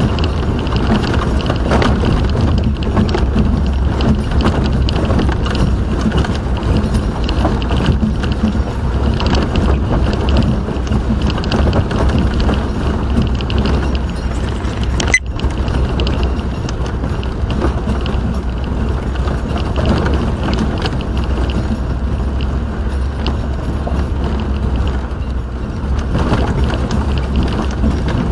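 Steady vehicle driving noise, engine and road rumble heard from inside the car, with one sharp click about halfway through.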